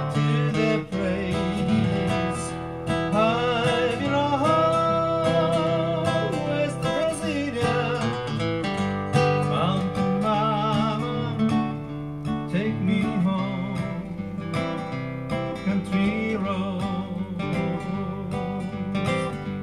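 Solo acoustic guitar played fingerstyle: a picked melody over a running bass line.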